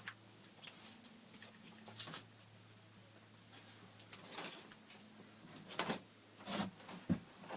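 Faint, scattered clicks and rustles of hands working with materials, about six short sounds spread irregularly, over a low steady hum.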